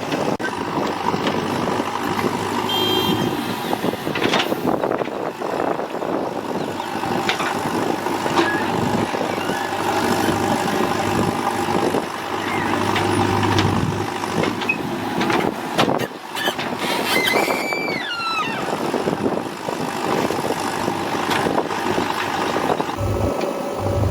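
Heavy diesel machinery running steadily, typical of a backhoe loader working beside tipper trucks, with occasional knocks. A brief high squeal with falling pitch comes about three-quarters of the way through.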